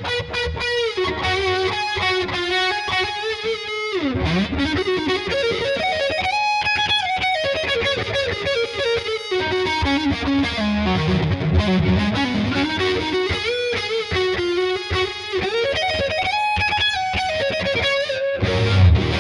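Epiphone Sheraton II semi-hollow electric guitar played with a distorted tone: a melodic lead solo of quick note runs and string bends, the pitch sliding up and down between held notes.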